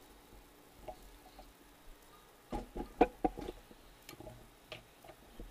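Footsteps on the shop floor and knocks from handling the camera, a handful of short irregular thuds and clicks, most of them bunched together about three seconds in.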